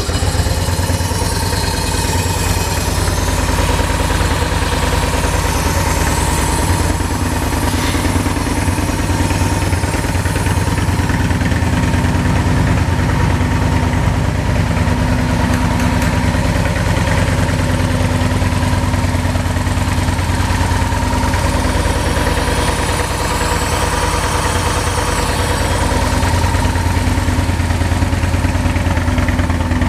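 V-twin motorcycle engine idling steadily in neutral at about 1,000 rpm.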